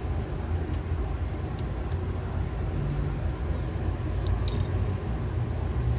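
Steady low background rumble, with a few faint light clicks from small screws and tools being handled on an opened smartphone's frame.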